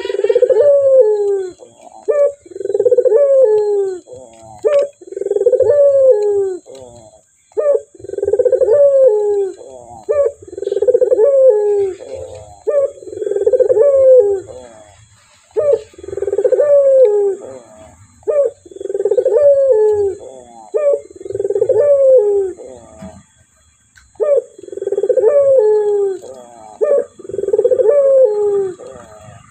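Male Barbary dove (puter) cooing over and over, a low rising-and-falling coo about every two seconds, with a brief pause a little after two-thirds of the way through.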